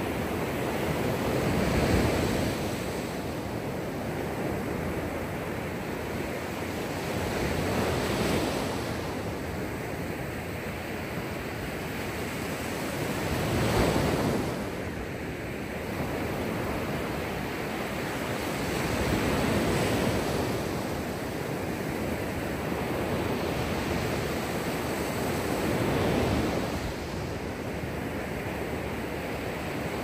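Mediterranean Sea waves breaking on a beach, the surf swelling and falling back about every six seconds.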